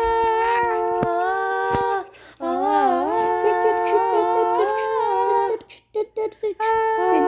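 Music: a wordless hummed melody in long held, gently stepping notes, with two short breaks between phrases, about two seconds in and again near six seconds.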